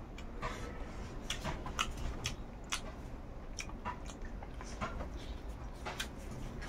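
Close-miked mouth sounds of a person chewing a mouthful of Manipuri singju salad eaten by hand, with irregular short crunches and wet clicks a few times a second.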